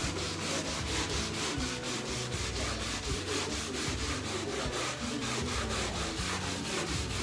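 Wet cloth with Cif cream cleaner scrubbing pen marks off a matte-painted wall: quick back-and-forth rubbing, about four to five strokes a second, at an even pace.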